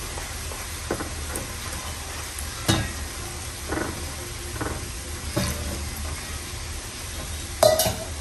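Plastic spatula stirring and scraping flour batter in a ceramic bowl, with a few short knocks against the bowl, over a steady sizzle of frying.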